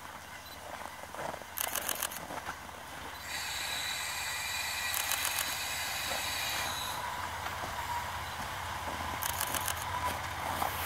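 JR Hokkaido KiHa 40 diesel railcar approaching on snowy track. Its wheels clack over rail joints in short groups about a second and a half, five and nine seconds in. A steady high-pitched whine from the wheels on the rails runs from about three to seven seconds in.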